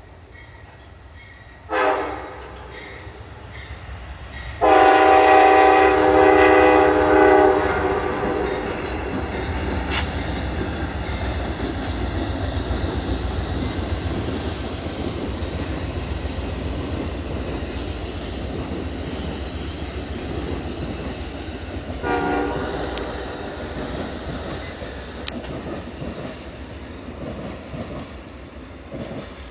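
Horn of an Amtrak P42DC diesel locomotive leading a passenger train: a short chord blast about two seconds in, then a loud long blast of several tones held about three seconds. Then the steady rumble and wheel clatter of the passing train, with one more short horn blast about two-thirds through, and the train sound fading near the end.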